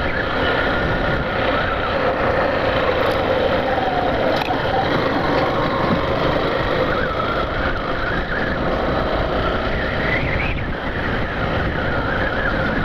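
Yamaha Factor 150 motorcycle's single-cylinder engine running steadily under way, with a brief rise in pitch a little after ten seconds in.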